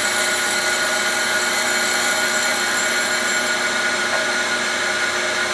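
Grinder with its wheel spinning against a steel shaft at first contact, taking a very light cut of about a quarter thou: a steady machine sound of many held tones.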